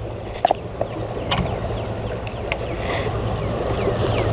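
A steady engine drone with a low hum that grows louder towards the end. A few sharp clicks come in the first half, and a run of short falling bird chirps comes near the end.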